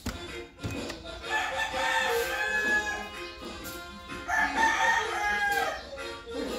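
Rooster crowing twice, each crow about a second and a half long.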